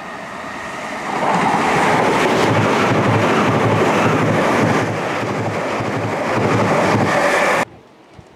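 Class 379 Electrostar electric multiple unit passing close at speed: a rushing noise that builds over the first second and stays loud, with a regular low beat under it, then cuts off suddenly near the end.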